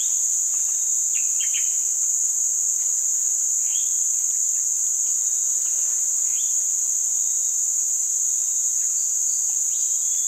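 Dense, steady, high-pitched insect chorus droning without a break, with a few faint short chirps over it.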